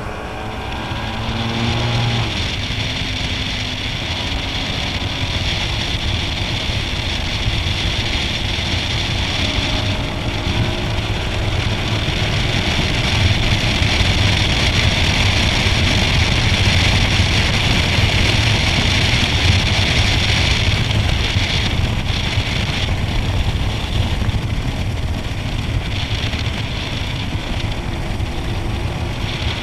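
Bass boat's outboard motor running steadily at low speed, with a steady hiss over the low engine rumble.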